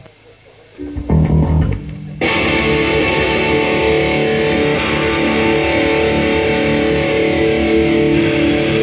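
Rock band playing live with electric guitar and bass: a few low notes start about a second in, then the full band with drums and cymbals comes in a little after two seconds and plays on steadily.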